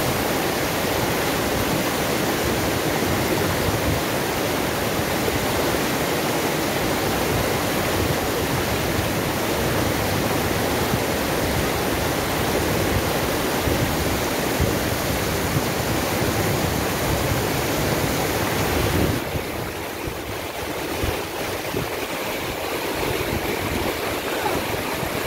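River water rushing and churning in fast, shallow rapids, a steady loud rush; about three-quarters of the way through it drops to a quieter, gentler flow.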